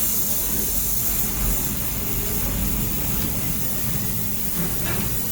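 Handheld air-cooled laser welder in use: a steady rushing hiss of shielding gas flowing from the welding torch, over a low rumble.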